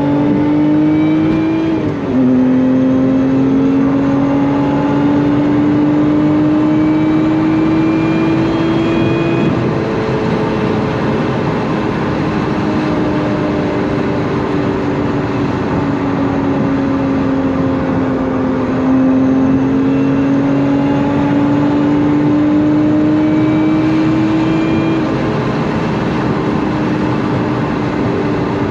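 Lotus Emira's supercharged 3.5-litre V6, heard from inside the cabin at high autobahn speed. About two seconds in, the engine note drops as the car shifts from third to fourth gear. It then climbs under throttle, sinks slowly as the car eases off, climbs again and eases near the end, over steady road and wind noise.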